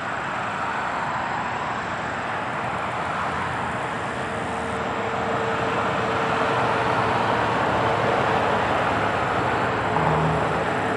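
Road traffic passing: a steady rush of tyre and engine noise that grows louder past the middle.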